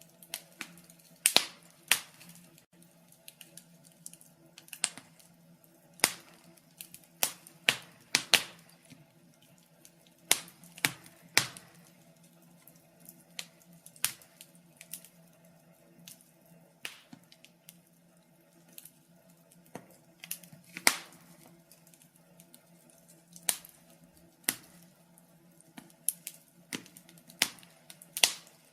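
Fire crackling: irregular sharp pops and snaps, a few each second, some much louder than others, over a faint low hum.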